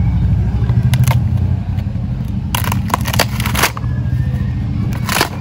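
Cardboard shipping box being torn open by hand, with sharp crackles and rips of cardboard and tape about a second in, in a cluster near the middle and once near the end, over a steady low rumble.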